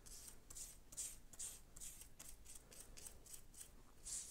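A stiff paintbrush scrubbing weathering powder into grooved styrene plastic card makes a faint, scratchy swish with each short stroke, about two or three strokes a second.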